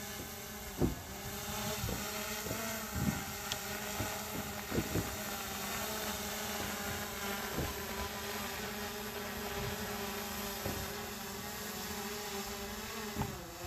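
Quadcopter drone's propellers humming steadily as it hovers close by, the pitch wavering slightly as the motors adjust. A few short dull thumps are also heard in the first five seconds.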